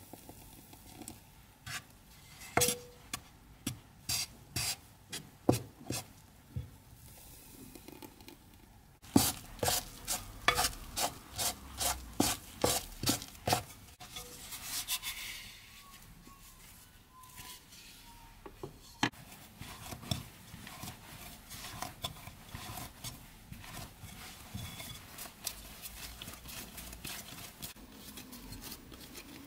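A utensil stirring flour and spinach purée into dough in an earthenware bowl, clicking against the bowl about twice a second, then faster about nine seconds in. In the second half the clicks give way to the softer rubbing and pressing of hands kneading the dough in the bowl.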